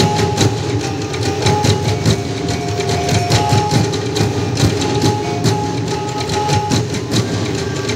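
Traditional Bukidnon dance music played on percussion: rapid sharp strikes in a steady rhythm over low drumming, with short ringing pitched notes and a steady held tone beneath.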